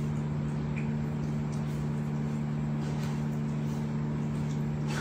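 Steady low machine hum that holds one even pitch throughout, with a faint click near the end.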